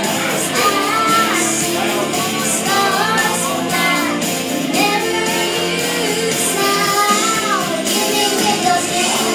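A young girl singing karaoke into a handheld microphone over a recorded backing track, holding long notes that bend in pitch.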